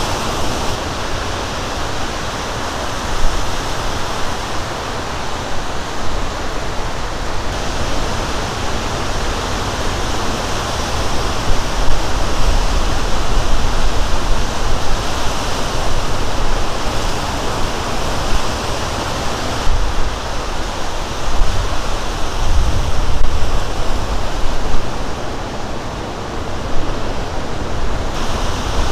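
Lake Michigan surf breaking on the shore: a steady, loud wash of crashing waves and whitewater that swells and eases, with a low rumble under it.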